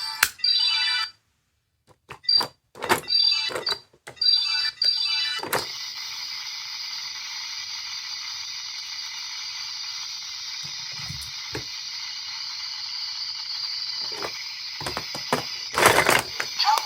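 Tinny electronic tones from a capsule-toy sound gadget's tiny speaker. They are broken by sharp clicks of its button being pressed, then settle into a long steady electronic tone, with more clicks near the end.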